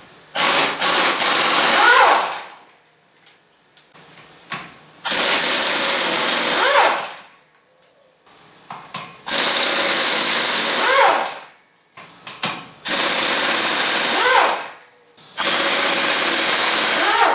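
Pneumatic impact wrench hammering the lug nuts off a truck's front wheel, in five runs of about two seconds each with short pauses and a few clicks between.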